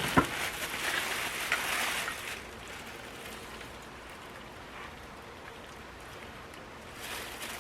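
Browned ground beef and hot grease sizzling in an electric cooking pot, with a sharp clink just after the start. The sizzling is stronger for the first couple of seconds, then dies down, and picks up again near the end.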